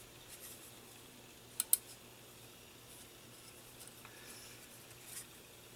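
A styrene plastic model car body being handled: two quick light clicks about a second and a half in and a few faint rustles, over quiet room tone.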